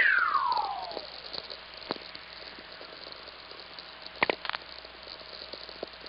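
VLF radio recording of a lightning whistler: a loud whistling tone that falls from high to low over about a second, in two close traces, over a steady hiss. Lightning's radio pulse, guided along Earth's magnetic field, arrives with its higher frequencies first, which makes the falling tone. Scattered short cracks from distant lightning (sferics) follow, with a cluster a little after four seconds in.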